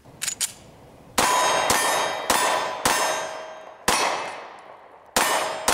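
Six shots from a 9mm HK P30 pistol, four in quick succession about half a second apart, then two more at longer gaps. Each shot is followed by a slowly fading metallic ringing.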